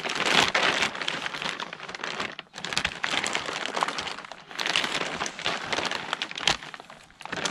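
Packaging crinkling and rustling in irregular bursts, with short pauses, as a new bumper lip is unwrapped and handled.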